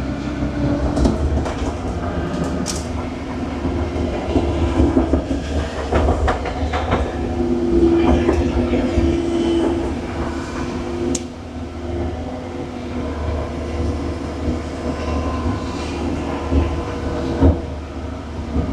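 Skid steer running under load as it drags a pile of brush and tree wood: a steady engine rumble with a hydraulic whine that rises and fades. A few sharp cracks and knocks are heard along the way.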